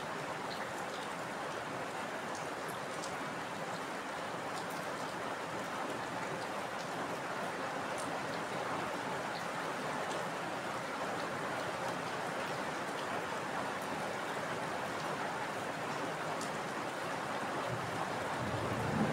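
Heavy rainfall: a dense, steady hiss with scattered individual drop ticks. A low rumble of thunder starts to build near the end.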